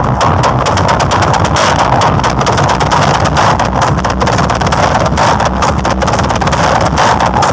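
Huge outdoor sound system with stacks of 24-inch bass cabinets blasting a film soundtrack at extreme volume. The sound is a dense, continuous wall of bass and noise, overloading the microphone into constant crackling.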